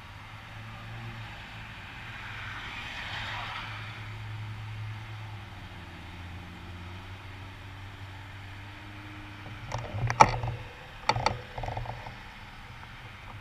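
Road traffic at an intersection: a car passes about three seconds in, its tyre noise swelling and fading over a steady low rumble. Near the end comes a short cluster of sharp clicks close to the microphone, the loudest sounds here.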